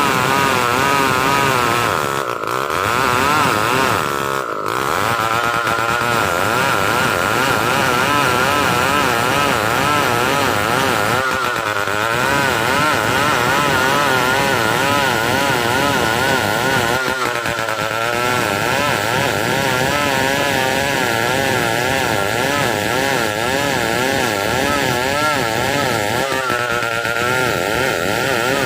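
Stihl 070 chainsaw's big two-stroke engine running hard while ripping lengthwise through a large log. Its pitch wavers and dips briefly now and then.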